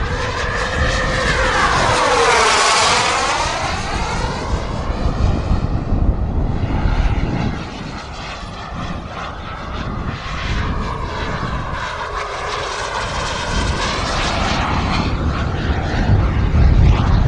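Kingtech K-160G2 turbine of a radio-controlled model jet flying past, a whistling whine that swoops up and then down in pitch as it passes about two seconds in. A second, gentler pass follows in the second half, with the whine sliding down again, over a low rumble.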